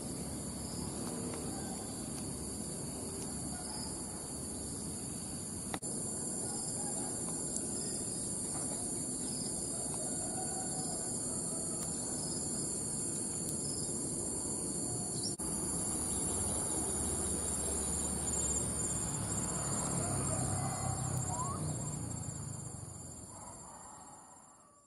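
Steady high-pitched chorus of insects chirring, one band pulsing, over a low rumble; it fades out near the end.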